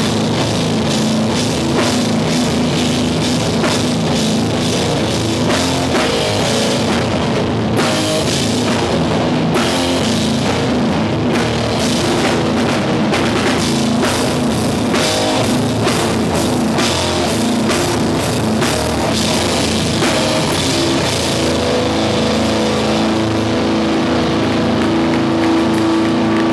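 A hardcore punk band playing live and loud: distorted electric guitars and bass over a drum kit with frequent cymbal crashes, sustained at a steady level.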